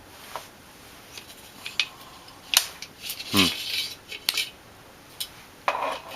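A hard drive being dropped out of its metal caddy by hand: a scattered series of sharp clicks, knocks and light metallic rattles, the loudest click about two and a half seconds in.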